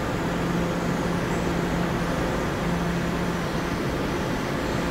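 R46 subway train standing in the station, its equipment giving a steady hum with a low drone under a wash of noise.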